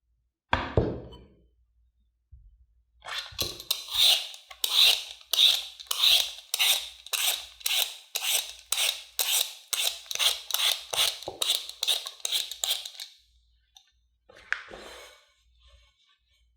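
A single knock on a work surface, then a raw potato being scraped with a kitchen tool in a steady run of about seventeen strokes, close to two a second, then one last short scrape.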